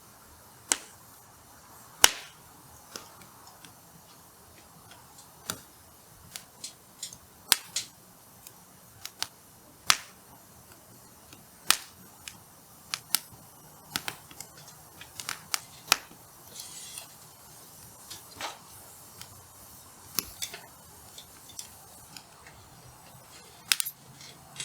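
Hardwood firewood burning in an open campfire, crackling with sharp, irregular pops and snaps, some much louder than the rest, and a brief hiss partway through.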